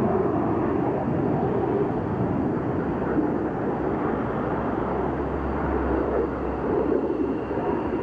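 Steady jet noise from a BAE Hawk T1's Rolls-Royce Turbomeca Adour turbofan as the jet flies past overhead.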